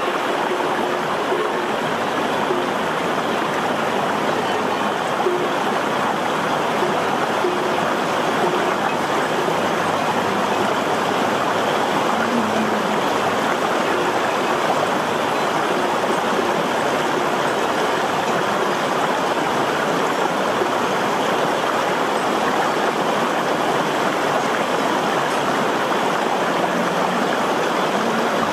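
Shallow stream rushing steadily over rocks and stones, a constant, even water noise.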